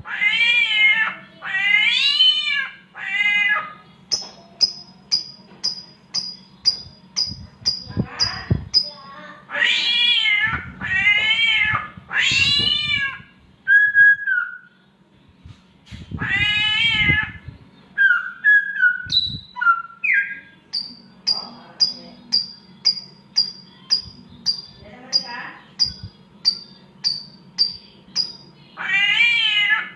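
Samyong (crested myna) mimicking a mating cat: drawn-out, wavering meows, several in a row, alternating with runs of short, high, falling whistle notes at about two a second and a few single whistles. A steady low hum lies underneath.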